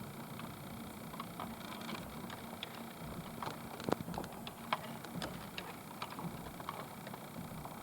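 Steady vehicle running noise with a low hum, with scattered light clicks and ticks throughout.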